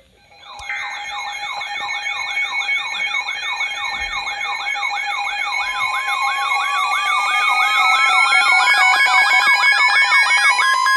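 Electronic siren-style alert tones growing louder: a fast wail sweeping up and down about three times a second over steady tones. About halfway in, a tone that rises slowly in pitch joins it, and steady tones start beeping near the end.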